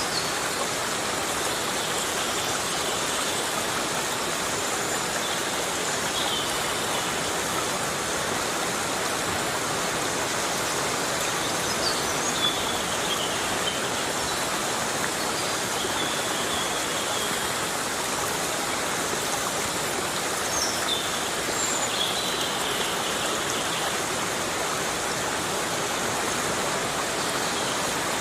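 Heavy rain falling on a forest, a steady even hiss without let-up. A few faint short high chirps come through it every few seconds.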